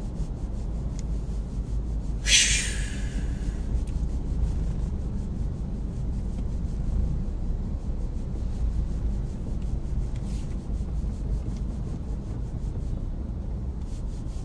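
Steady low road and engine rumble inside a moving third-generation Honda CR-V's cabin, with a brief burst of hiss about two seconds in.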